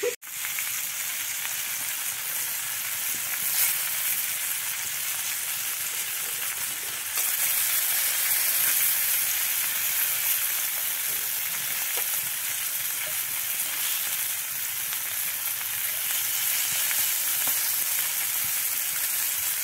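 Slices of bangda (Indian mackerel) shallow-frying in oil on a black flat pan (tawa), a steady sizzling hiss that gets louder about seven seconds in.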